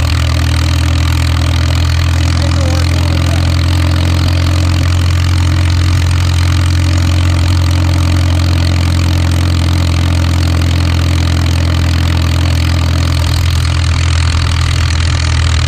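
McCormick-Deering Super M tractor's four-cylinder gasoline engine running steadily at road speed while towing a heavy pickup truck, a deep, even drone from the open exhaust stack.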